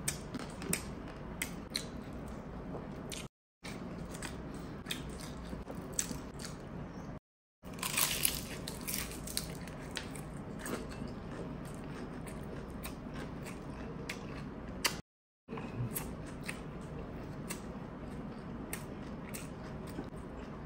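A person eating close to the microphone, biting and chewing, with scattered sharp clicks from the food and mouth. The sound cuts out completely three times for a moment.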